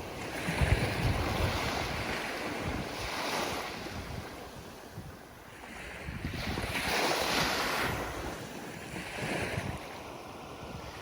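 Ocean surf: waves washing in as a series of swells that rise and fall every few seconds, the biggest about seven seconds in. Wind rumbles on the microphone near the start.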